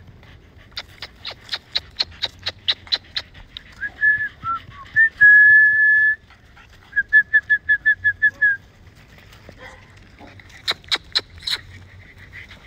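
A person calling puppies with mouth sounds. First comes a quick run of sharp clicks, about five a second. Then come whistles: a few short sliding notes, one long steady note, and a fast run of short whistled pulses on the same pitch, with a few more clicks near the end.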